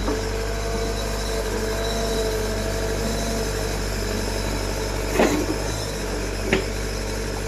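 Diesel engine of heavy earthmoving or farm machinery running steadily, with two short knocks about five and six and a half seconds in.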